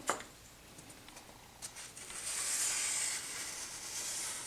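Homemade foam-board hinge cutter drawn along a ruler, its blade slicing the bevel into the foam board with a steady scraping hiss for about three seconds, after a light click at the start.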